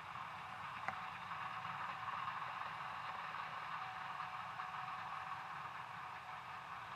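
Gleaner S67 combine running steadily while harvesting soybeans, an even machine noise with one short click about a second in.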